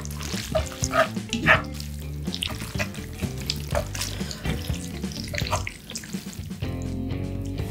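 Chopsticks stirring and lifting sauce-coated spaghetti in a cast iron skillet of tomato sauce, making a quick, irregular run of short sticky clicks and smacks.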